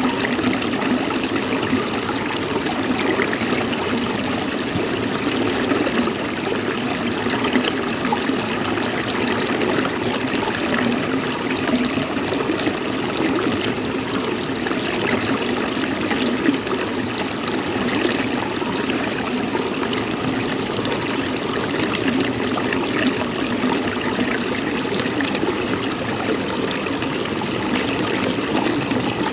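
Steady running water, an even unbroken rush.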